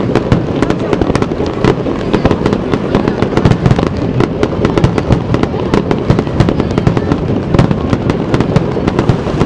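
Aerial firework shells bursting in quick succession, many sharp bangs and crackles per second that run together into a continuous din.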